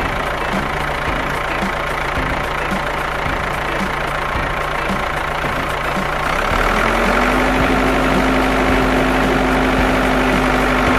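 Battery-powered ride-on toy cars' electric motors running with a steady hum as one tows the other, stuck in mud, on a tow strap. About six and a half seconds in, a second, higher hum joins and the sound gets a little louder.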